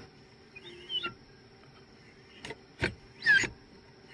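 Hand pump of a cooling-system pressure tester being worked to pressurise the repaired radiator. Each stroke gives a click or two and a short squeak, falling in pitch, roughly every two seconds.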